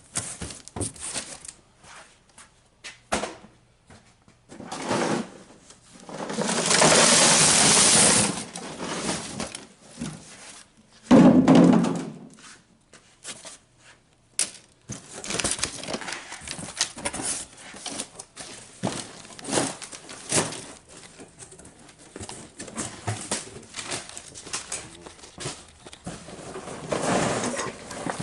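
Cardboard box being handled and sealed with packing tape: scattered knocks and rustling, with a long, loud rip of tape pulled off the roll about six seconds in and a shorter heavy scrape or thump a few seconds later.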